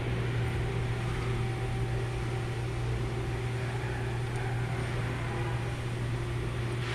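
A steady low mechanical hum that keeps an even level, with no distinct knocks or clicks.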